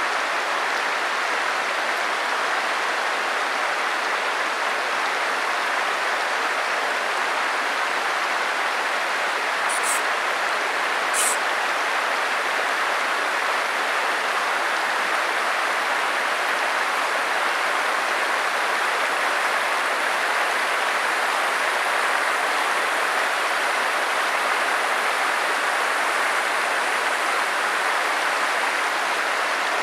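Steady rush of stream water flowing over rocks, with two brief high-pitched ticks about ten and eleven seconds in.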